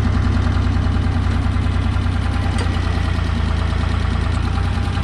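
Holder A45 tractor engine running steadily with an even low rumble.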